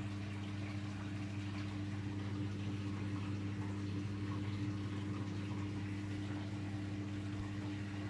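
Daewoo DWD-FT1013 front-loading washing machine in the cooldown and drain stage of a 95°C cotton cycle: a steady low electric hum with faint water noise, no change throughout.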